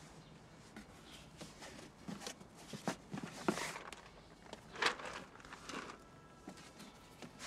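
Rummaging by hand through a cardboard box: cardboard and the things inside rustling and knocking in irregular handling noises, with the sharpest knocks in the middle.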